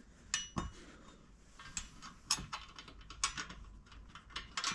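Faint, irregular small metal clicks and rattles as nuts are threaded by hand onto the bolts of a bumper side bracket.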